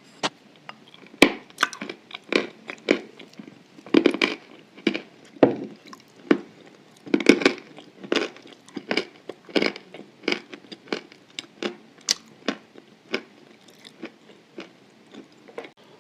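Close-up mouth sounds of someone chewing and crunching chalk mixed with white clay paste: a steady run of short crunches and wet chews, several a second in places.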